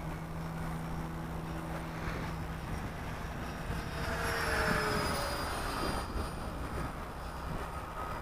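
Electric ducted-fan RC jet flying past, its fan whine swelling about halfway through and dropping in pitch as it passes, over a steady low rumble of wind on the microphone.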